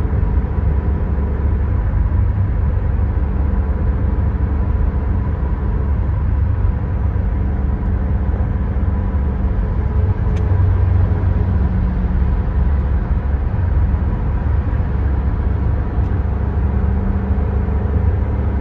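Car interior at highway speed: a steady, low road-and-engine rumble in the cabin, with a faint steady hum above it.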